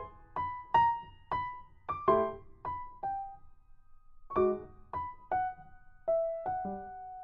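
Background music: a gentle melody of single piano-like notes, each struck and fading, about two a second, with a short pause a little before halfway.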